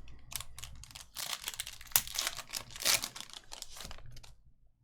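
Crinkling and rustling of trading cards and their packaging being handled, a quick run of short scraping strokes that stops shortly before the end.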